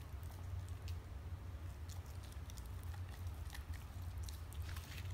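A German Shepherd chewing a piece of raw New York steak, with irregular wet smacks and squishes, over a steady low hum.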